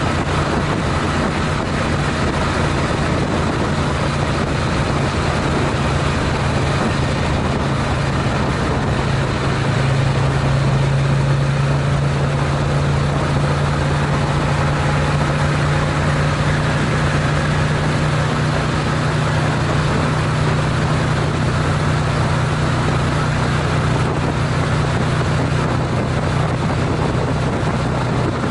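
Honda CTX700N motorcycle's parallel-twin engine running steadily at highway cruising speed, a low drone under continuous wind and road noise.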